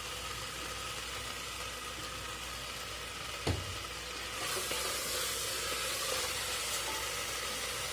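Okra, tomato and spices sizzling in a pot over a gas flame, with a single clack about three and a half seconds in. The sizzle grows louder about halfway through as the vegetables are stirred.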